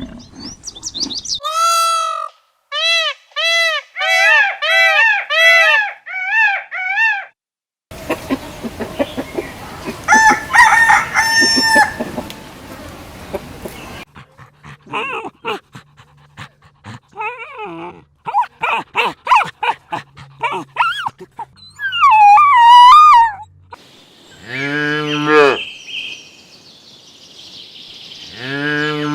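Chickens calling in a string of short clips, with a rooster crowing among them. Series of repeated calls, broken by sudden cuts and brief gaps.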